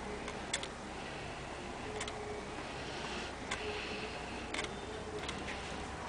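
Light, unevenly spaced ticks, four or five of them, as a soldering iron tip and solder wire work along the pins of a surface-mount microcontroller, with a faint hiss near the middle, over a steady low hum.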